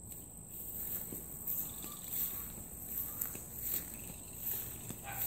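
Insects in a steady high-pitched chorus with a pulsing upper layer, and footsteps on grass and dirt.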